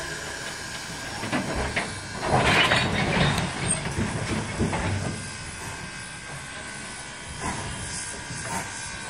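Narrow-gauge steam train's coaches rolling along the track. A rushing hiss comes about two to three seconds in, then the train runs on steadily with small clicks from the wheels.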